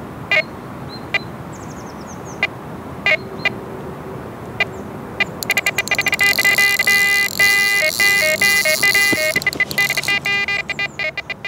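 Electronic carp bite alarms bleeping: a few single bleeps at uneven intervals, then from about five seconds in a fast, unbroken run of bleeps, stepping in pitch, that stops near the end. A continuous run like this is the signal of a take, a fish pulling line off the reel.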